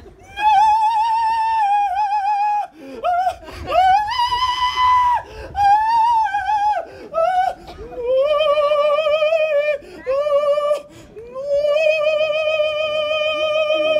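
High-pitched wordless singing: a series of long held notes with a wavering vibrato, separated by short breaks, pitched lower in the second half.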